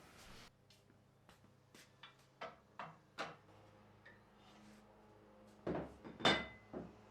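A string of light knocks and clicks, then three louder clunks near the end, over a faint steady hum.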